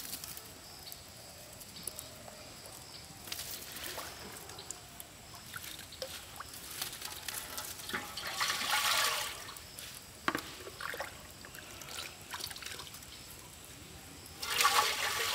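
Water poured from a plastic mug into a large metal cooking pot: a splashing pour lasting about a second, about eight seconds in, then more splashing of water near the end. Scattered light clicks and knocks come before the pour.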